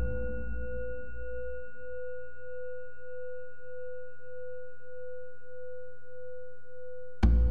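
A singing bowl rings with one steady tone that swells and fades slowly in a regular pulse, left sounding from a strike just before. It is struck again near the end, with a soft low thud at the strike.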